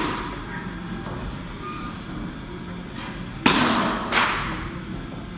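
Two sharp thumps about two-thirds of a second apart, a little past halfway, each with a short ringing tail, from a ball striking during a throwing drill.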